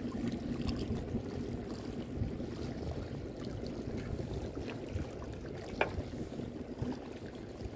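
Wind buffeting the microphone over water lapping around a small fishing boat at sea, with one brief click a little before six seconds in.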